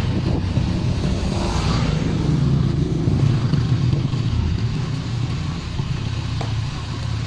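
Motorcycle engine running at low speed, a steady low rumble heard from the rider's seat while riding over a rough, muddy dirt road.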